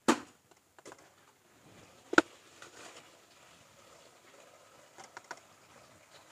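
A few small sharp clicks and one louder knock about two seconds in, from a small balance scale and its metal pan being handled while dye powder is weighed out.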